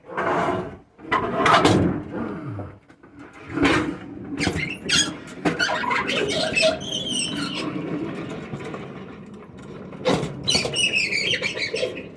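A refrigerator being shifted and manhandled: knocks and bumps, with squeals and squeaks from it scraping and rubbing, the loudest squealing in the middle and near the end.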